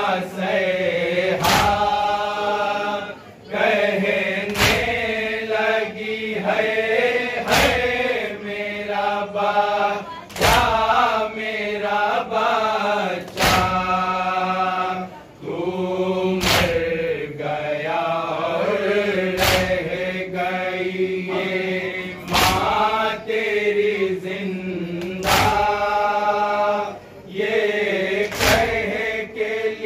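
Men chanting a Muharram nauha (lament) in unison with a lead reciter. The chant is punctuated about every three seconds by one loud, sharp slap of matam: the crowd striking their chests together.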